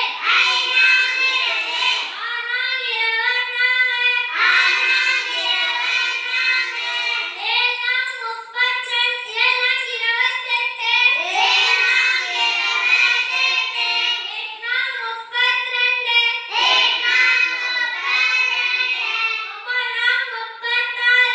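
A boy's voice reciting the 14 times table aloud in a sing-song chant, line after line with only short breaks.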